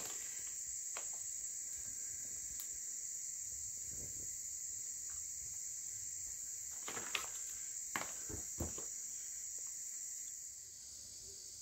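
Steady, high-pitched chirring of insects, with a few faint clicks in the middle. The chirring eases a little near the end.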